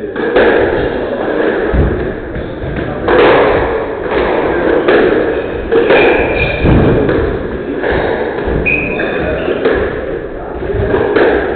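Squash rally: the ball being struck by rackets and hitting the court walls in repeated sharp thuds, roughly one every second or so. Two brief high squeaks, about halfway through and a little later, fit shoes squeaking on the wooden court floor.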